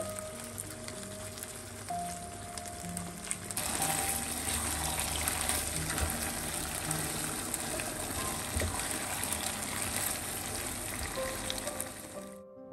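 Sausage slices in a thick red sauce sizzling steadily in a frying pan, louder from about three and a half seconds in, under soft background music; the sizzle cuts off near the end.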